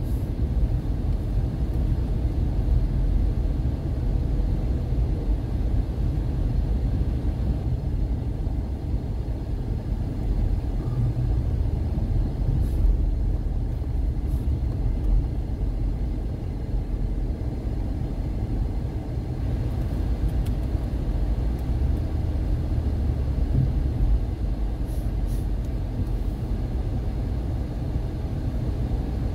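Car driving, heard from inside: a steady low rumble of engine and road noise.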